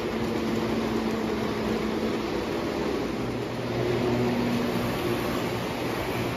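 Lionel O gauge model trains running on three-rail track: a steady whir of wheels on the rails with a low electric-motor hum.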